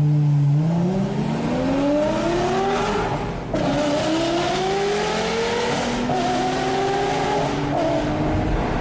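Lamborghini Gallardo Superleggera's V10 with an LOC aftermarket exhaust, accelerating hard through the gears: the engine note climbs steadily in pitch, breaks and drops at an upshift about three and a half seconds in, climbs again, and shifts again about six seconds in.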